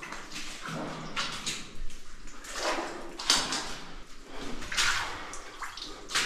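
Footsteps wading through deep mud and water: several uneven sloshing, squelching steps.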